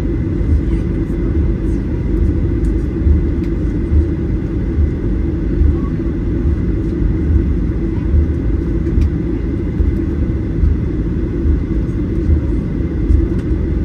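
Steady, loud cabin rumble inside a Boeing 737-800 airliner from its CFM56-7B engines and the airflow, with a faint steady high tone over it.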